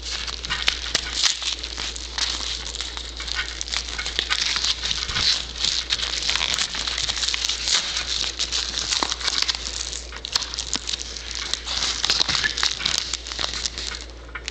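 Padded mailer envelope crinkling and crackling as it is handled and opened, a continuous rustle full of sharp little crackles that dies down near the end.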